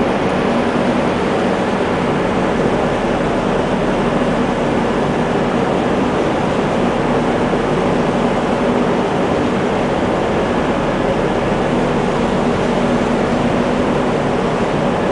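Steady ambient noise on a tanker's deck at sea: a continuous rush with a low, even machinery hum under it.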